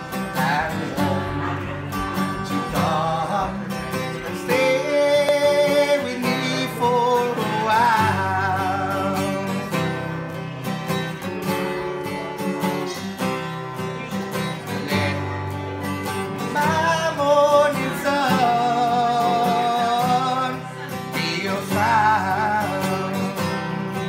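Two acoustic guitars strummed together, with a man singing a melody over them in phrases.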